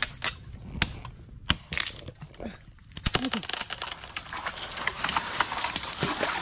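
A machete chopping a thin tree trunk: a few sharp cracks in the first second and a half. From about three seconds in, a long dense crackling of snapping twigs and rustling leaves as the cut sapling is pushed over through the surrounding branches.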